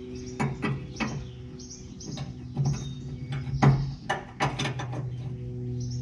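Steel wrenches clinking and clanking against a bolt and the truck's underbody metal as a fastener is worked, a string of sharp irregular clicks with some ringing, loudest about three and a half seconds in. A steady low hum runs underneath.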